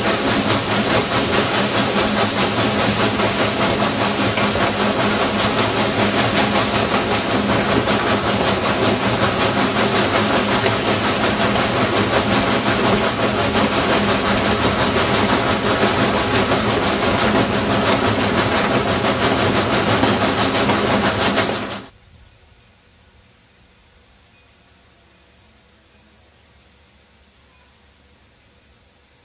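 Southern Railway 2-8-0 steam locomotive heard up close at its driving wheels while running: a loud, dense, rapid clatter of rods and wheels on the rails. About 22 s in it cuts off abruptly to a quiet trackside with a steady, pulsing insect trill.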